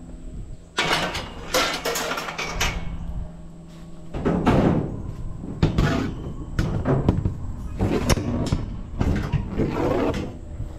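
Metal wire shelving racks rattling, scraping and clanking as they are handled and lifted onto a pile of scrap metal in a pickup bed. A long scraping rattle comes near the start, followed by several separate clanks and rattles.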